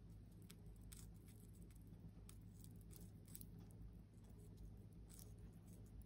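White-bellied caique biting and chewing a fresh pea pod held in its foot: faint, irregular little crunches and clicks of the beak, over a low steady hum.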